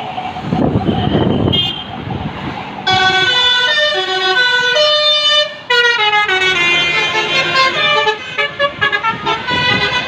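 Bus telolet basuri musical horn playing a quick melody of stepped notes, starting about three seconds in, over the noise of the passing bus and traffic.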